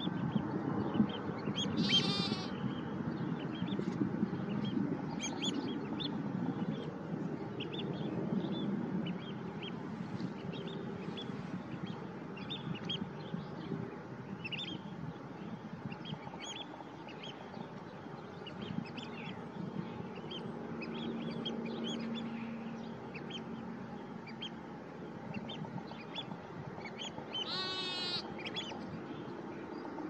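Outdoor pasture ambience: small birds chirping on and off over low background noise, with a short, fast rattling call about two seconds in and again near the end.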